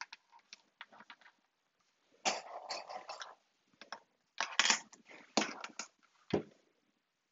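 Fabric pieces being handled and plastic sewing clips snapped onto their edges: several short rustles and clicks with quiet gaps between them.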